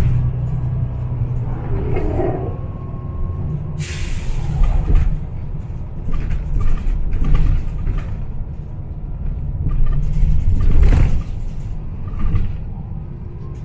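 NJ Transit bus running with a steady low engine rumble and occasional knocks and rattles. About four seconds in, the air brakes give one sharp hiss of released air lasting about a second.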